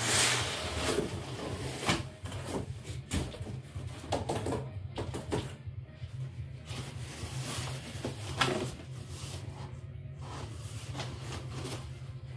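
Cardboard boxes being handled: a guitar box scraping and rubbing as it slides out of its shipping carton, then knocks and rustles as it is set down and its cardboard lid is pulled open.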